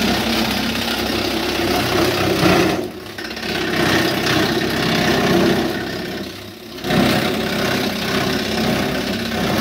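Motor-driven forage chopper running loud and steady while leafy branches are fed into it and shredded into goat fodder. The chopping noise eases briefly about three seconds in and again past six seconds.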